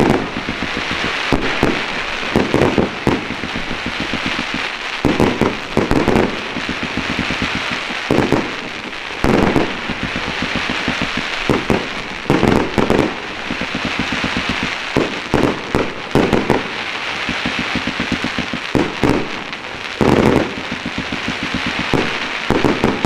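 Aerial firework shells bursting at close range in rapid, irregular succession, many sharp booms a second or less apart. Beneath the booms runs a continuous crackling hiss.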